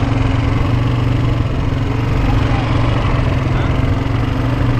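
Small ATV engine running steadily with an even, low hum.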